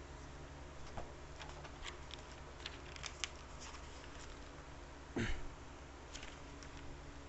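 Small clicks and rustles of handling over a steady low hum, with one short thump about five seconds in.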